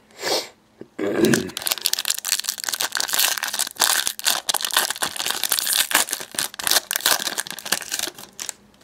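A trading-card foil pack being torn open and its crinkly wrapper worked as the cards are pulled out: a dense, continuous crackle of crinkling foil from about a second in until just before the end.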